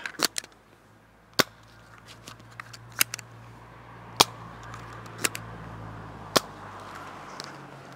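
Nerf Elite 2.0 Duo spring-powered dart blasters fired one shot after another, each a sharp snap, with a few lighter clicks between.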